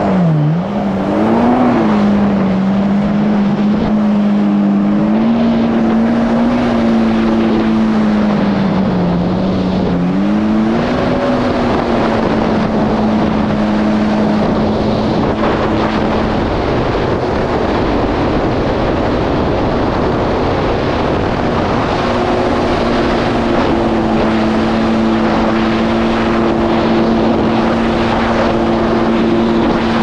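Yamaha GP1800R SVHO jet ski's supercharged four-stroke engine running at speed under open throttle, its pitch wavering over the first ten seconds and then holding steady, with a heavy rush of wind and water over the microphone. The engine note fades for a few seconds past the middle, then returns steady.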